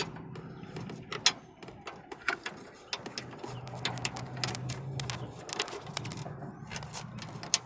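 Irregular sharp metallic clicks and clinks of hand tools and bolts being worked into a car's headlight mounting, over a low steady hum.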